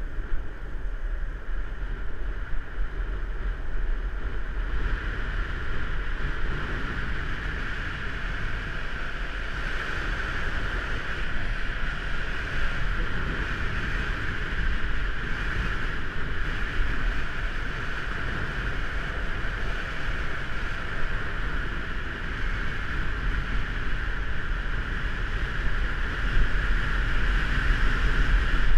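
Longboard wheels rolling fast down an asphalt road, a steady roar mixed with wind buffeting the board-mounted camera's microphone. The hiss grows stronger about five seconds in.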